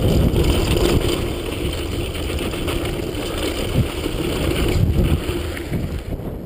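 Mountain bike rolling fast over loose gravel and rock, a steady low rumble of wind on the microphone and tyre noise with scattered knocks and rattles from the rough ground. The sound fades near the end.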